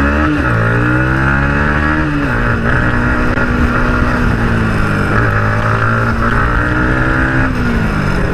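Single-cylinder motorcycle engine on the move: revs climb over the first two seconds, drop sharply at a gear change, hold steady, then fall away as the throttle eases near the end. A steady rush of wind on the helmet-mounted microphone, whose foam windscreen has fallen off, runs underneath.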